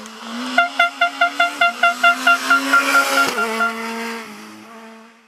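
Rally car driving past at speed, its engine note swelling and fading. A rapid run of short pitched pulses, about six a second, makes up the loudest stretch, and the sound cuts off abruptly near the end.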